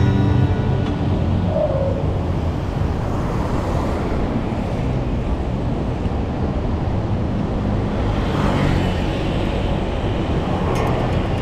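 City road traffic noise: motor vehicles running along the road in a steady rumble, with one passing more noticeably about eight seconds in.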